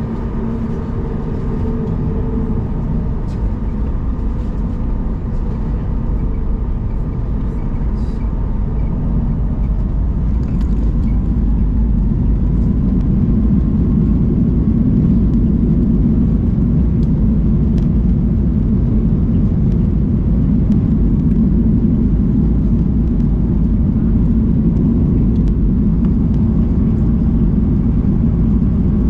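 Boeing 737 MAX 8's CFM LEAP-1B turbofan engines spooling up to takeoff thrust, heard from inside the cabin. The roar grows over the first dozen or so seconds with a slowly rising whine, then holds steady through the takeoff roll.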